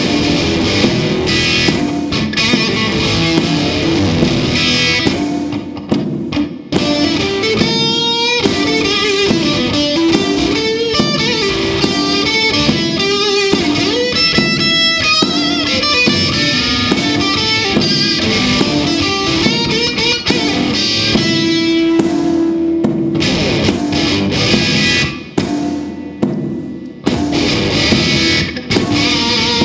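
Blues music with no singing: electric guitars and drums. The band drops out briefly twice, about six seconds in and again around twenty-five seconds in.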